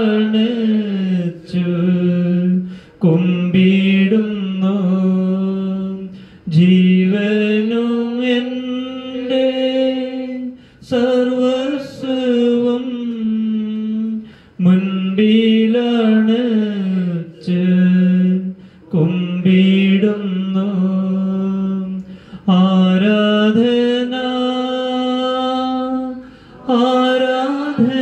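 A single voice singing an unaccompanied chant in slow phrases a few seconds long, each held in a narrow pitch range with slight rises and falls and short breaks for breath between them.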